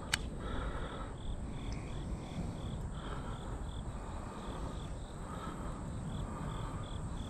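Crickets chirping in a steady rhythm, about three chirps a second, over a low background rumble, with one sharp click just after the start.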